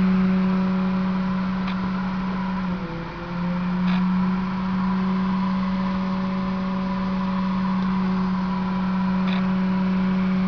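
Steady low machine hum from running laboratory equipment, a motor or fan in the hydrogen test rig, with one held tone that wavers and dips briefly about three seconds in. A few faint clicks.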